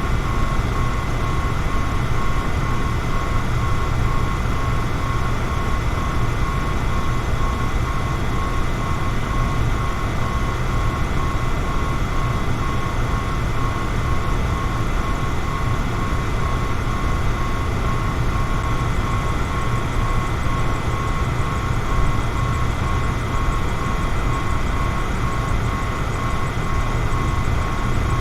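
Electric fan running steadily: a low hum and an even rush of air, with a thin steady whine that flutters slightly.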